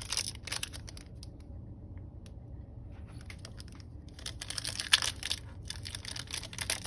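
Trading-card pack wrapper crinkling and tearing open, with cards being handled, in short scratchy spells, and a quieter pause in the middle.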